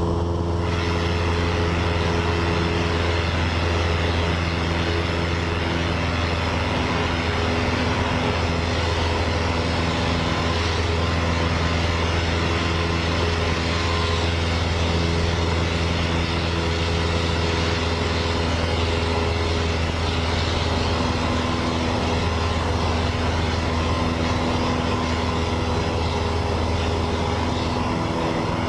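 Cessna 172N's four-cylinder Lycoming engine and propeller at climb power, a steady unbroken drone heard inside the cockpit as the aircraft climbs away from a low pass over the runway.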